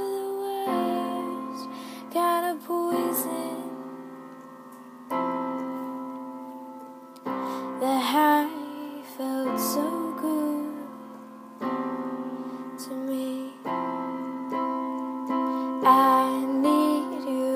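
Piano chords struck about every two seconds, each left to ring and fade, with a woman singing short, wordless phrases over some of them.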